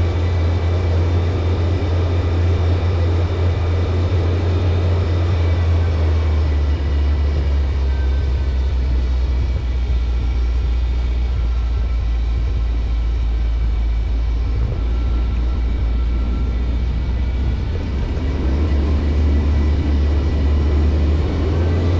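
Ferrari 308's V8 engine running with a steady low drone, its pitch easing down and back up in the middle. The car is said to be suffering a misfire and loss of power.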